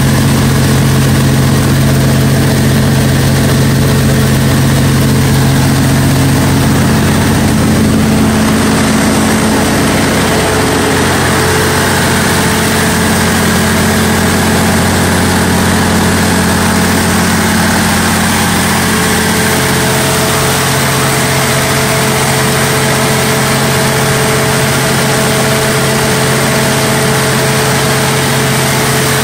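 Cummins NTA-855-G2 turbocharged, aftercooled inline-six diesel engine of a 300 kW standby generator set running steadily at constant speed. Its steady tone shifts slightly about ten seconds in.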